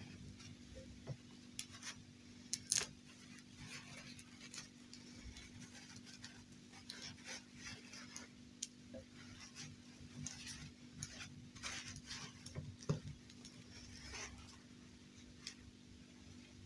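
Quiet rustling of doll dresses and light clicks and taps of plastic fashion dolls being handled, scattered irregularly, over a steady low hum.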